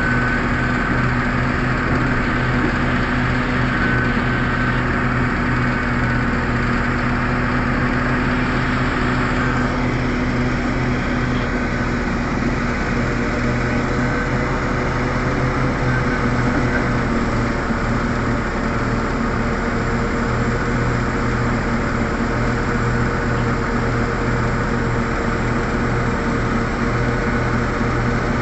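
Large mining diesel engines, a hydraulic excavator and a CAT 777D haul truck, running steadily under load with a constant deep hum. About halfway through, a higher steady whine joins.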